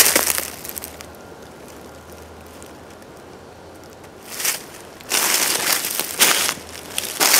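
Footsteps crunching through dry fallen leaves, stopping for about three seconds, then a single crunch and steady crunching again from about five seconds in.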